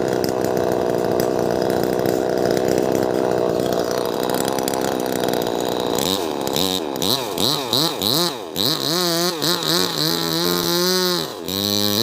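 Two-stroke chainsaw running hard at steady high speed, cutting through a tree trunk. About six seconds in, the engine pitch starts rising and falling over and over as the throttle is pulled and released.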